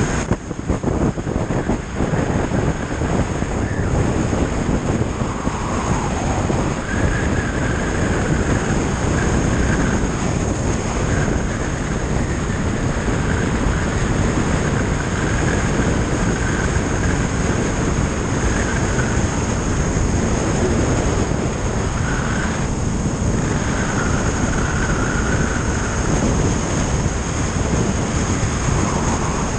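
Wind rushing over the microphone together with motorcycle engine and road noise while riding steadily along a road. A faint high whine comes and goes over the rush.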